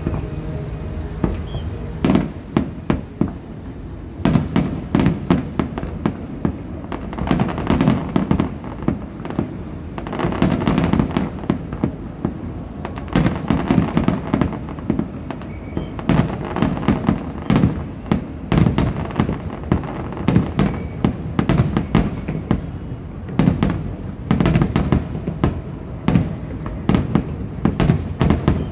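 Aerial firework shells bursting in rapid volleys, many sharp bangs and crackles in quick succession, with brief lulls between the salvos.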